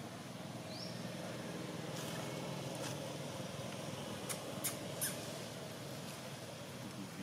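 Steady low outdoor rumble, like distant traffic, that swells and fades over a few seconds. A few short clicks and crackles of dry leaves come in the middle.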